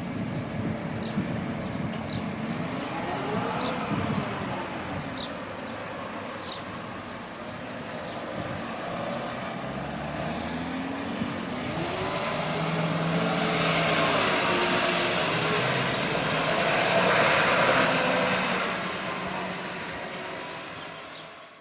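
Road traffic over a level crossing: a bus drives across, its engine pitch rising as it pulls through, and the tyre and road noise swells to its loudest in the second half as a car follows. The noise fades slightly near the end.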